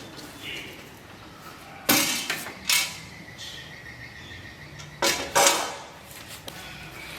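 Clattering and knocking as bandsaw parts and packaging are handled during unboxing: four loud knocks in two pairs, the second one leaving a thin metallic ring that hangs on for about two seconds.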